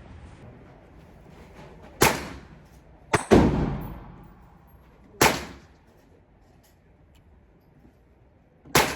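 Gunshots at a shooting range: single sharp reports with a short echoing tail, one about 2 s in, two in quick succession just past 3 s, one just past 5 s and one near the end.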